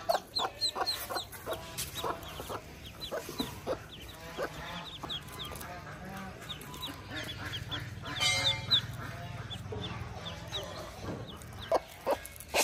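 A broody domestic hen clucking softly while newly hatched Cayuga ducklings peep in short, high calls, several a second. A louder, longer call stands out about eight seconds in.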